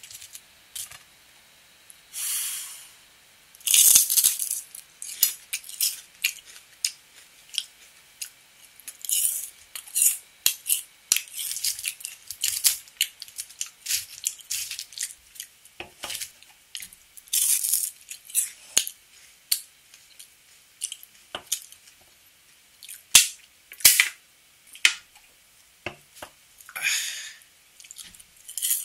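Crispy deep-fried baby hairtail being picked at and pulled apart with metal chopsticks: irregular crackling crunches of the fried batter and sharp little clicks, with a few longer rustling crackles.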